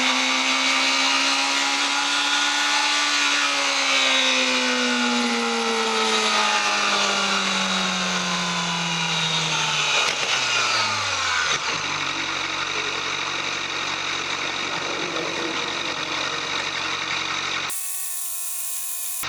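Yamaha YZF-R6's inline-four engine on its stock exhaust, held at high revs, then slowly winding down over several seconds and settling into a steady idle about eleven seconds in. Near the end the deep part of the sound drops out briefly.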